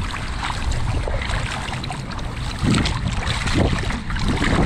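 Wind rumbling on the microphone over the splashing and sloshing of feet wading through shallow water. The wind surges louder about two and a half seconds in and again near the end.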